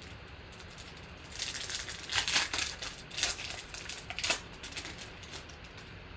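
Crinkling and crackling of trading-card packaging being handled, in a flurry of short bursts that peaks a little after two seconds in and dies away before the end.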